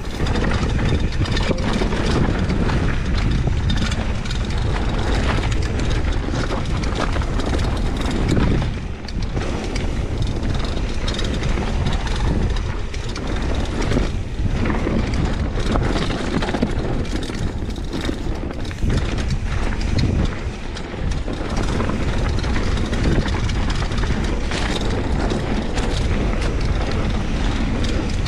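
Mountain bike riding fast down a dirt singletrack: a steady rumble and rush from the tyres on the dirt, with frequent rattles and knocks from the bike over bumps.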